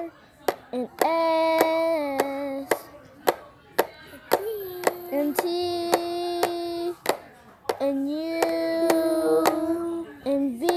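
A child's voice holding three long sung notes at a steady pitch, each lasting a second or two, with many sharp taps in between and over them.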